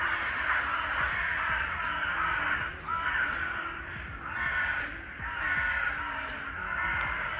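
Many crows cawing at once in the treetops, a dense harsh chorus with a few brief dips.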